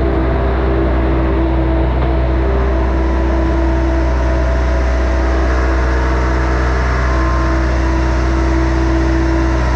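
A vehicle running steadily: a constant low engine drone with a steady higher hum and road noise, unchanging throughout.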